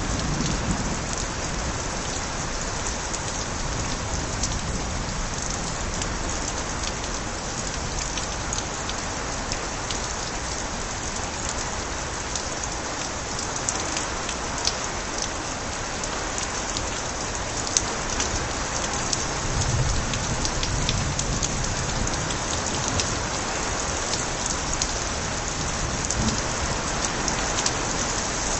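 Steady rain pouring, with overflowing gutters spilling and sharp individual drips splashing throughout. A brief low rumble of distant thunder comes about two-thirds of the way through.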